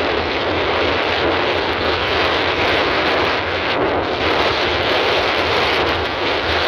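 Car driving along a cobbled street: a steady rushing roar of wind across the microphone mixed with road noise.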